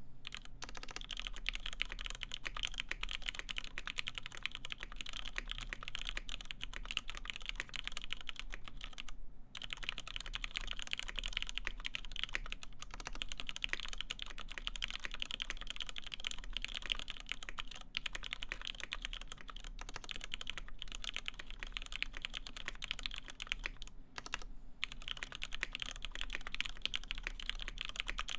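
Fast, continuous typing on a mechanical keyboard with lubed Cherry MX Black linear switches, PBT keycaps and an FR-4 plate: dense overlapping keystroke clacks, with two brief pauses, about a third of the way in and near the end.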